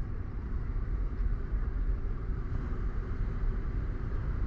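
Steady outdoor beach ambience: a low rumble with a soft hiss over it, from wind and surf.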